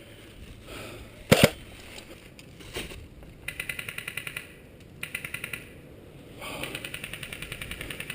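Airsoft guns firing. There is one sharp crack about a second in, then full-auto bursts of rapid ticks at about ten shots a second, the last burst running on near the end.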